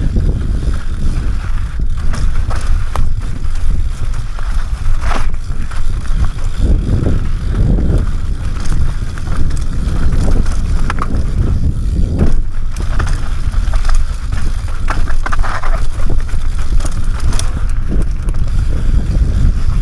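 Mountain bike descending a rough enduro trail: a steady low rumble of wind and tyres on dirt and rock, with frequent knocks and rattles from the bike jolting over bumps.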